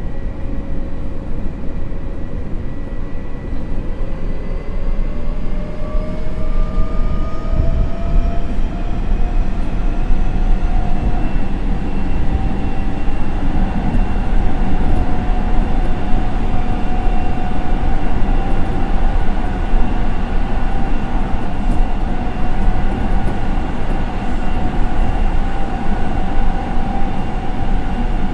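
Nagoya Municipal Subway 3000-series train running over a steady rumble of wheels on rail. Its motor whine rises in pitch for about ten seconds as it accelerates, then holds steady at speed.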